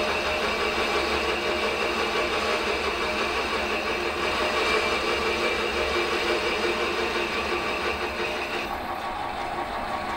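Metal lathe running while a parting tool cuts a piston-ring groove into a spinning cast iron piston: a steady machine whirr with a high ringing tone that stops near the end.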